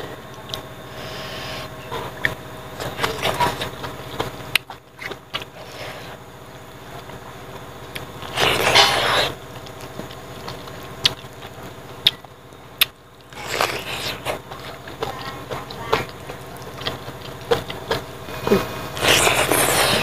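Close-up mukbang eating sounds of a man eating pig trotters and rice by hand: wet lip smacks, chewing and sucking, heard as many short sharp clicks, with two longer noisy bursts about nine seconds in and near the end.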